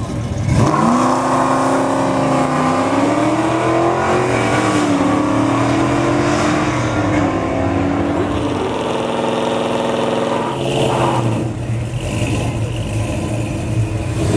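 Classic Mopar muscle-car V8s at a drag strip: an engine pulls away hard, its pitch climbing through several seconds of acceleration. In the last few seconds another engine runs at steady high revs.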